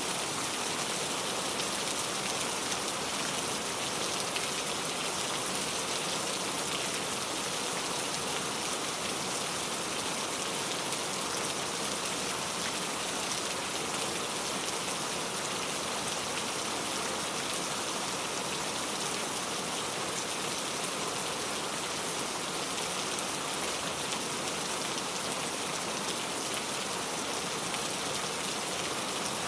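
Steady rain falling, an even dense hiss of drops hitting surfaces that holds unchanged throughout.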